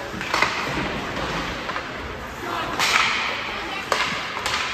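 Ice hockey play: several sharp cracks of sticks and puck, one about half a second in, a louder one near the middle, and two more toward the end, over a background of voices in the rink.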